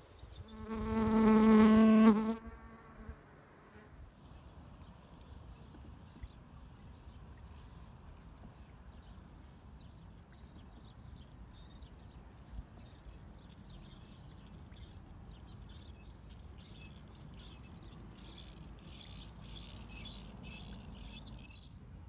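A flying insect buzzes close by for about two seconds near the start, a steady pitched drone. After it, faint outdoor hiss with evenly repeated soft high ticks.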